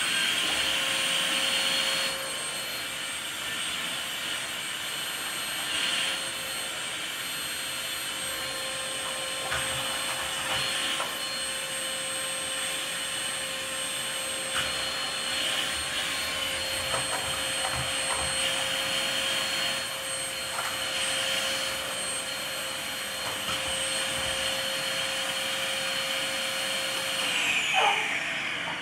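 Vacuum cleaner running with a steady whine, with a few light knocks along the way; near the end it is switched off and the motor winds down.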